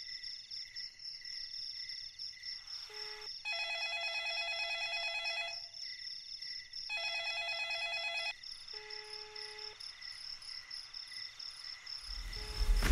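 Desk telephone ringing twice, each ring an electronic trill of one to two seconds. A short low steady beep comes before the first ring and a longer one after the second. Faint steady cricket chirping runs underneath.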